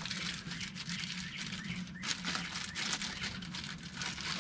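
Plastic wrapper crinkling and rustling as a new transmission filter is unwrapped: a string of irregular, uneven crackles, over a faint steady hum.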